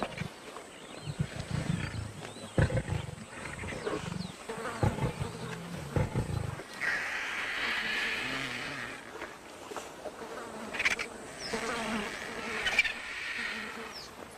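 Lions growling low and repeatedly as they feed on a hippopotamus carcass. About halfway through the growls give way to a steady buzz of insects.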